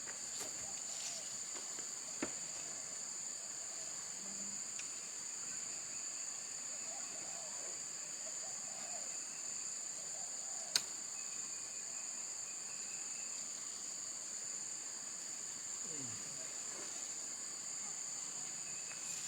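A steady, high-pitched drone of insects (crickets or cicadas) fills the background without a break. Two sharp clicks or knocks cut through it, one about two seconds in and a louder one about eleven seconds in.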